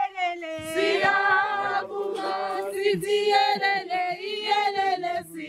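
A choir of voices singing together, with women's voices leading, holding long notes in harmony.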